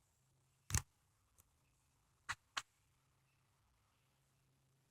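Near silence broken by three short clicks: one under a second in, then two close together a little past two seconds.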